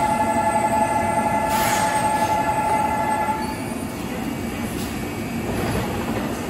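Busan–Gimhae light rail train at the station with a steady running rumble and a high two-pitched whine or squeal held level, which stops about three and a half seconds in.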